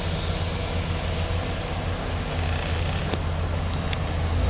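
Heavy diesel engines of mining equipment running steadily with a low drone as a hydraulic excavator digs coal beside a dump truck. A few short clicks sound about three seconds in.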